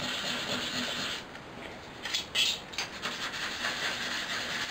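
A square of thin aluminium drinks-can metal being rubbed down on a cutting mat to take off the burr around a freshly poked pinhole: a steady scratchy rubbing. The rubbing stops about a second in, a few sharp scrapes and taps follow as the piece is turned over, and then the rubbing starts again.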